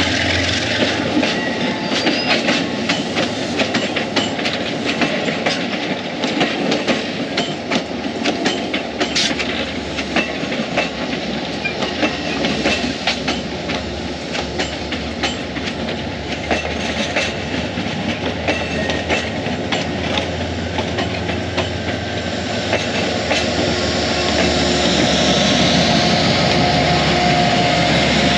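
Amtrak passenger train rolling past, its wheels clicking over rail joints amid a steady rumble.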